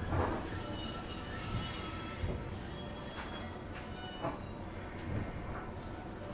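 JR West 201 series electric train heard from inside the car. A steady high-pitched squeal rides over the running noise for about five seconds. Then the noise falls away as the train draws to a stop.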